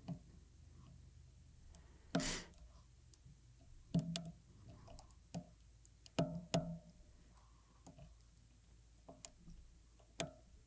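Small irregular clicks and taps of a pointed tool against the MacBook Pro's logic board and its Wi-Fi antenna connectors as the antenna cables are pressed on, with a brief scrape about two seconds in.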